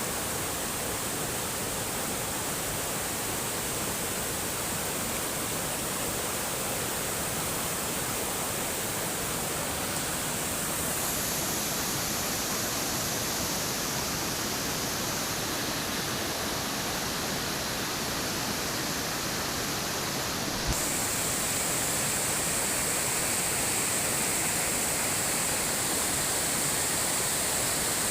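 Flowing water rushing steadily, like a stream or small waterfall. The hiss changes character abruptly twice, about a third and two thirds of the way through.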